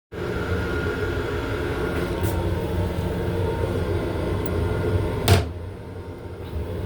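Steady low rumble and hum inside a Long Island Rail Road M7 railcar's restroom, with a single loud sharp knock about five seconds in.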